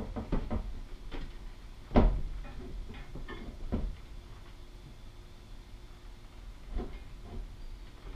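Scattered knocks and clunks of a helmet holder and a motorcycle helmet being handled and held against an enclosed trailer's wall, the loudest about two seconds in.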